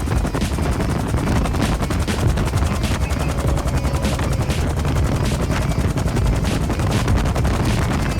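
Bell UH-1 Huey helicopter's main rotor beating fast and steadily over the turbine's running, heard loud and close from aboard.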